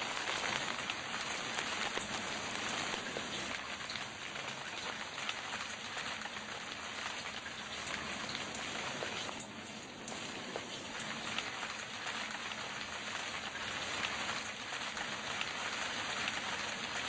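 Steady outdoor patter of rain: an even hiss dotted with many small drop ticks, easing slightly for a moment about halfway through.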